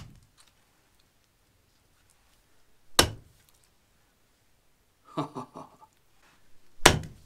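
Condor Heavy Duty Kukri blade chopping through raw chicken legs into a wooden log chopping block: sharp, heavy thunks right at the start, about three seconds in, and near the end. A few lighter knocks come just before the last chop.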